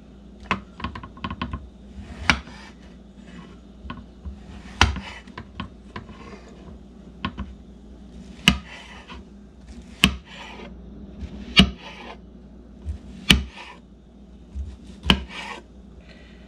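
Chef's knife slicing through a fresh king bolete (porcini) on a bamboo cutting board. The blade makes a soft rasp as it passes through the firm flesh, then a sharp knock as it meets the board, every second and a half or so.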